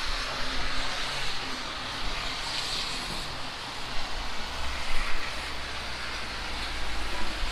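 Steady hiss of rain and strong wind on a wet street, with a vehicle's tyres swishing on the wet road, loudest about midway.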